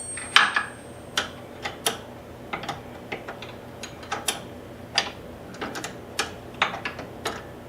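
Irregular light clicks and knocks from small hard objects being handled, about fifteen of them spread unevenly over several seconds, over a faint steady hum.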